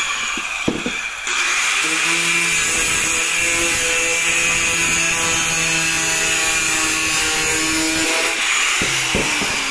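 Makita handheld disc cutter running at speed and cutting through PVC pipe next to its end cap, with a steady high whine. Near the end the motor is let off and winds down, its pitch falling.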